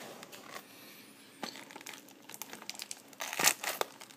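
Plastic shrink-wrap on a sealed box of trading cards crinkling and crackling as the box is handled, with a louder crackle about three and a half seconds in.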